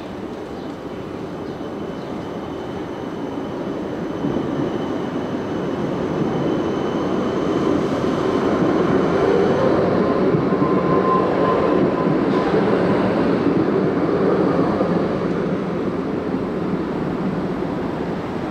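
Electric tram running on street-laid rails and passing close by: a rumble of steel wheels on rail that swells, is loudest as the cars go past about halfway through, with a brief thin whine, then fades as it moves away.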